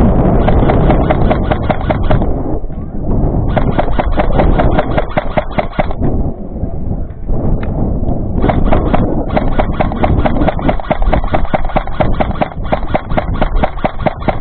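Airsoft electric guns firing full-auto in three long runs of rapid, evenly spaced clicking shots, with short pauses between, over wind and handling rumble on the microphone.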